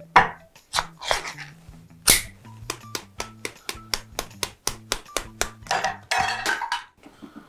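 A palm slapping the bottom of an upturned can of Spam to knock the meat loose: several sharp smacks, the loudest near the start and about two seconds in, over background music with a stepping bass line and quick ticks. A longer rough burst comes about six seconds in.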